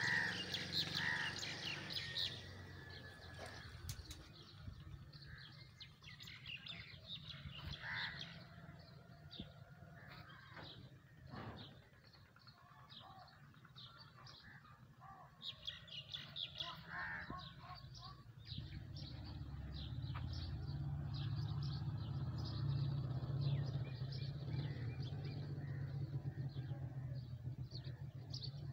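Small birds chirping in short, scattered calls, with a low steady rumble that grows louder about two-thirds of the way in.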